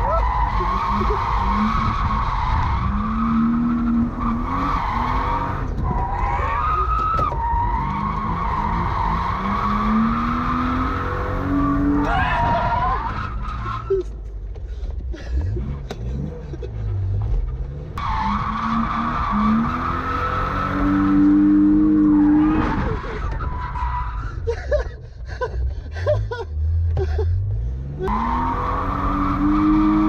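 BMW E36 drifting, heard from inside the cabin: the engine revs up and falls back again and again while the tyres squeal, the squeal dropping away for a few seconds around the middle and again near the end.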